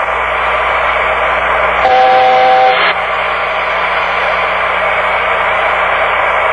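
Steady static-like hiss and low hum of a cockpit voice recording's background noise, with a brief two-note beep about two seconds in that lasts under a second.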